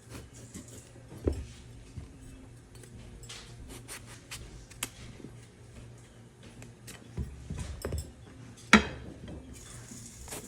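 Kitchen clatter: scattered clicks and knocks of utensils and dishes during food preparation, with one loud, sharp knock near the end.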